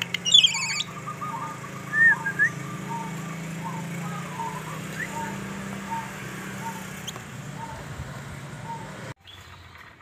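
Asian pied starling (jalak suren) calling: a burst of high chattering notes in the first second and a short whistled phrase about two seconds in, over a string of short low notes repeating about every half second. The sound cuts off suddenly about nine seconds in.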